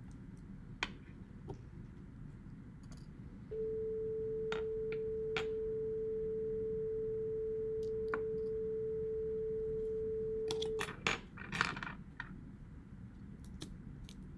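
A steady pure electronic tone, one unchanging pitch, that switches on a few seconds in and cuts off abruptly about seven seconds later. Scattered small clicks and taps of handling and prying small parts, with a short cluster of them just after the tone stops.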